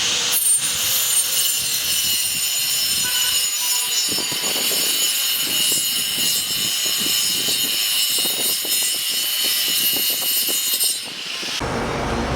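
Homemade battery-powered cutter driven by a 775 DC motor, its blade spinning with a steady high whine. A rasping cutting noise joins in as the blade works through a workpiece, and the motor cuts off near the end.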